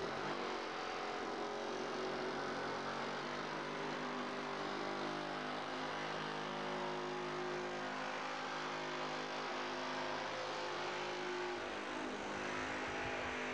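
An engine running steadily at an even speed, a constant droning hum with no change in pace.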